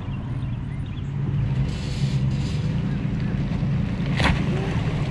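Bass boat's outboard motor idling with a steady low hum as the boat eases toward its trailer at the ramp, with one sharp knock about four seconds in.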